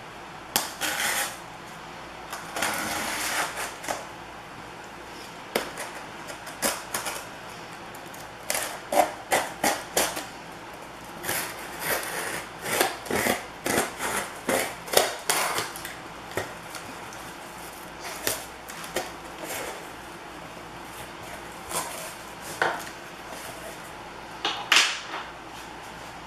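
A cardboard shipping box being opened and its packing handled by hand: irregular rustles, scrapes and sharp knocks, busiest in the middle.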